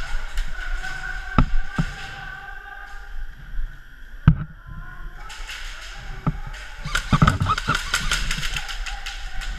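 Indoor airsoft game: scattered sharp knocks and clicks, with a quick run of clicks about seven seconds in, and faint far-off voices in the background.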